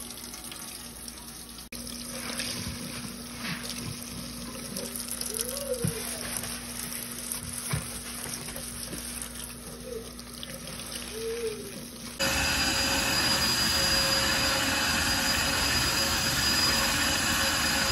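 Kitchen tap running into a stainless steel sink while a sponge scrubs the basin, with a low steady hum under it. About twelve seconds in this gives way abruptly to a louder, steady motor noise that holds to the end.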